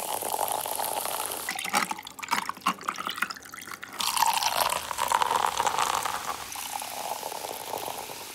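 Sparkling water poured from a bottle into a tall glass of ice. A pour is followed by a couple of seconds of crackling fizz. A second pour starts abruptly about four seconds in and tapers into a steady fizzing hiss.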